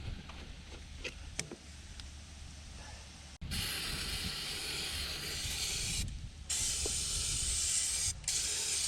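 Loud hiss of air or spray under pressure, starting abruptly about three and a half seconds in and cutting out briefly twice before resuming. Before it there is a low rumble with a few faint clicks.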